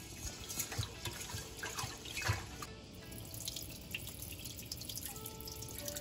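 Rice being washed in a rice cooker's inner pot: a hand swishes and stirs the grains in water, then about three seconds in the cloudy rinse water is poured off through the fingers into the sink, trickling and splashing.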